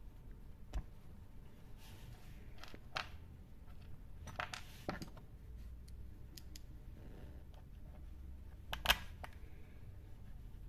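Scattered light clicks and taps of small metal parts and a hand tool as new oil pump parts are fitted into a chainsaw's open crankcase, with the sharpest knock near the end.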